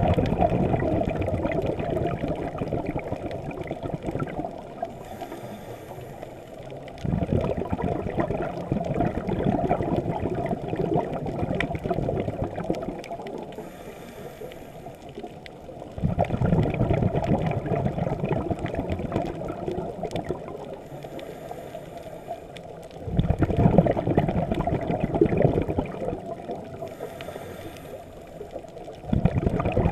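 Scuba diver breathing through a regulator underwater: each exhale sends out a rush of bubbles that starts suddenly and fades over about four seconds, with a faint high hiss of the inhale between them, repeating roughly every seven seconds.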